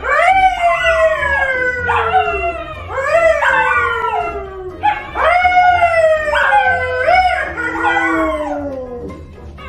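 Howling in several overlapping voices, a man's imitation of a dog howl among them. Each howl rises sharply and then slides slowly down in pitch, with a new one starting every second or two, and the howling fades near the end.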